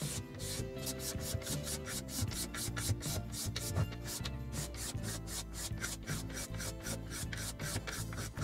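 Sandpaper rubbed by hand over the wooden pieces of a knife stand in quick, even back-and-forth strokes, about five a second, with background music underneath.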